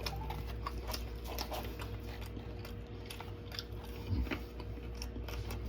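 A person chewing food close to the microphone, a ketchup-dipped french fry, with scattered small wet mouth clicks. A brief low 'mm' hum comes about four seconds in.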